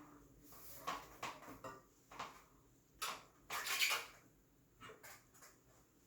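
Scattered light clicks, knocks and rustles of loose bicycle parts and packaging being handled, with a longer rustle about three and a half seconds in.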